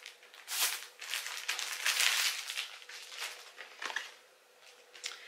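Packaging crinkling and rustling as a niqab is unwrapped by hand, in irregular bursts that fade out after about four seconds.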